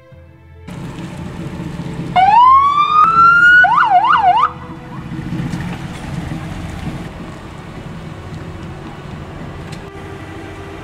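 Electronic police siren on a red Ford Mustang fitted with blue emergency lights: one rising wail about two seconds in, then a quick yelping warble of about three cycles that cuts off suddenly. A steady low rumble runs under it.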